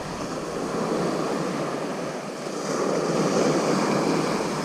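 Ocean surf breaking and washing up the beach, a steady rush that swells twice.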